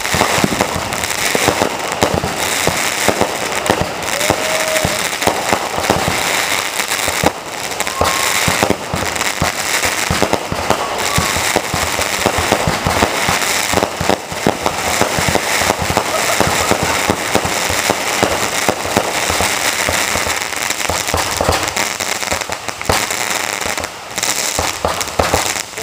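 200-gram consumer firework cake firing, a dense unbroken barrage of crackling and popping.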